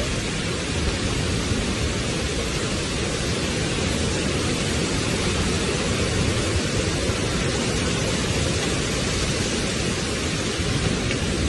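Storm-force wind and heavy rain making a steady, unbroken rush of noise, with wind buffeting the microphone.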